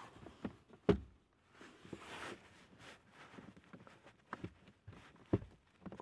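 Handling noise around a car's glovebox and dashboard trim: several sharp knocks and clicks, the loudest about a second in, between soft rustling and scraping.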